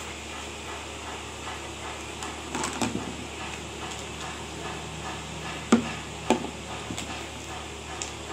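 A few knocks and clunks of hard objects being handled, the two loudest close together a little past the middle, over a steady low hum.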